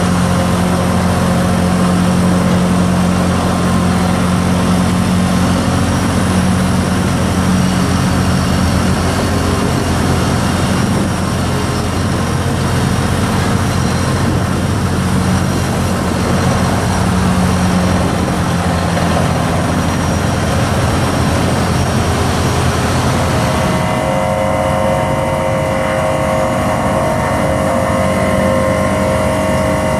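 Bruce SGV-60 hydraulic vibratory pile hammer running as it drives a steel sheet pile: a loud, steady mechanical drone. About three-quarters of the way through, the low hum weakens and higher steady tones take over.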